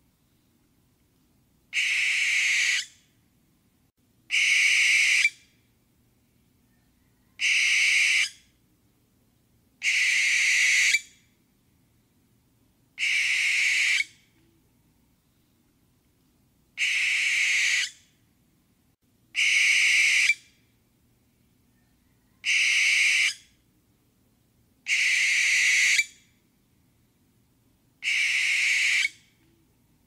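Barn owl screeching: ten long, harsh screams of about a second each, repeated every two to three seconds with silence between them.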